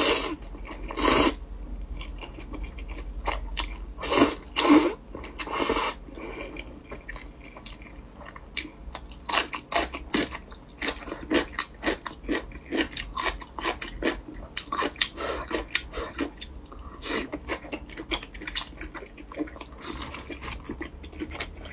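A mouth slurping in zhajiang noodles, with a few long, loud slurps in the first six seconds. Then steady chewing with many short wet mouth clicks.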